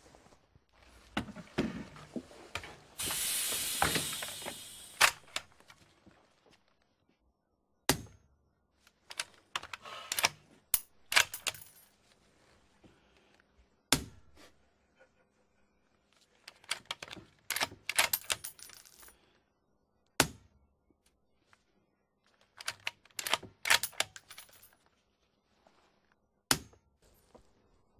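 Bora 12 bolt-action sniper rifle firing four suppressed shots about six seconds apart, each a short sharp crack. Between shots come quick clusters of metallic clicks as the bolt is worked. The suppressed report is hardly louder than the action's own mechanism noise, with some handling of the rifle at the start.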